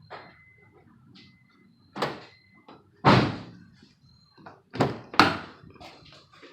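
A 2004 Honda Odyssey's passenger door being unlocked and opened: a series of clunks from the lock, the latch and the door. The loudest is about three seconds in, and two more come close together about five seconds in.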